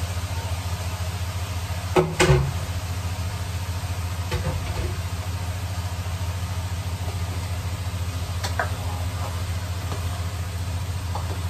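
A steady low hum under a loud double clatter about two seconds in, as the lid comes off the stainless steel pot, followed by a few lighter knocks of a spatula against the pan as broccoli and asparagus are stirred.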